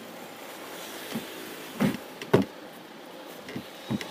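A black rexine (vinyl leatherette) motorcycle seat cover being handled: about five short rustles and thumps, the loudest about two seconds in, over a faint steady background hum.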